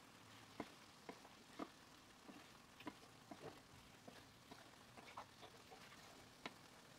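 Faint, scattered clicks and taps of a wooden spatula stirring a thick meat and aubergine curry in a frying pan.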